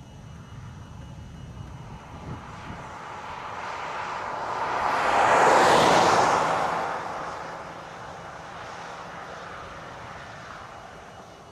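A vehicle passing close by on the highway: its tyre and engine noise swells to a peak about halfway through, then fades away.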